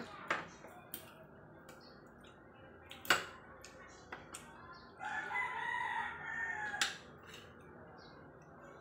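Fork and spoon clicking and scraping against a plate as fried fish is picked apart, a handful of sharp clinks spread through. About five seconds in, a rooster crows once for about two seconds.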